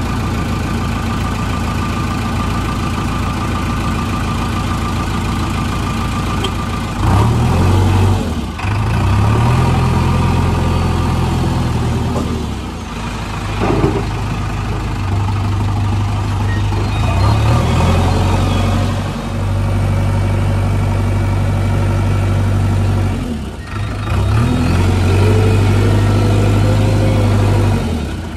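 JCB 3DX backhoe loader's diesel engine, heard from the cab, running and revving up repeatedly as the loader drives and raises its loaded front bucket. The revs climb and hold for a few seconds at a time, about four times, dropping back to a lower run between.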